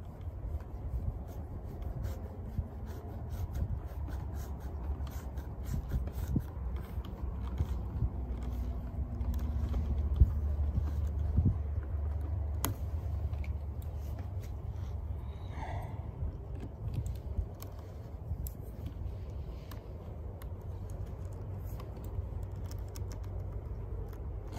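Hands working an oiled leather stirrup leather and its metal buckle on a western saddle: scattered small scrapes and clicks of leather and hardware, with a knock about ten seconds in and a sharp click soon after, over a low steady rumble.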